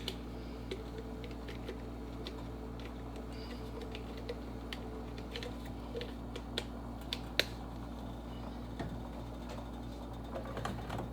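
Scattered light clicks and taps of spice containers and a measuring spoon being handled, irregular, about a dozen over several seconds, over a steady low hum.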